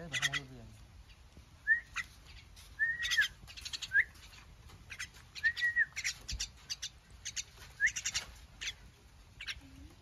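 A young myna calling over and over with short, harsh notes, some ending in a quick rising or arched whistle: begging calls while it is being hand-fed.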